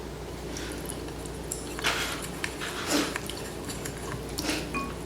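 A person eating Buldak instant noodles: a few short, noisy slurping and chewing sounds, then a light clink of a utensil against the bowl near the end.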